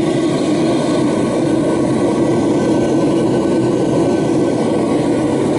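Homemade propane forge burner running with a blue gas flame: a loud, steady rushing noise that does not change.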